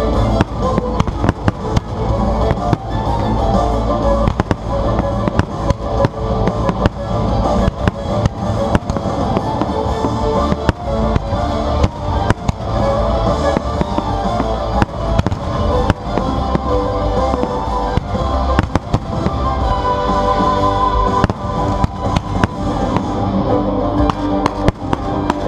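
A pyromusical fireworks display: a rapid, irregular run of firework bangs over loud accompanying music.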